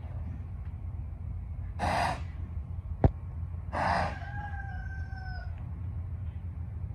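A horse snorts twice, two short breathy blows about two seconds apart. A sharp click comes just after the first, and a rooster crows faintly after the second, one long call falling slightly in pitch.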